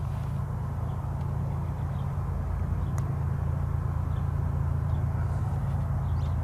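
A train's low, steady rumble, growing slightly louder as it approaches.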